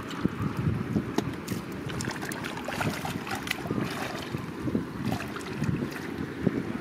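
Muddy water sloshing and splashing irregularly as hands grope through shallow mud for fish, with some wind on the microphone.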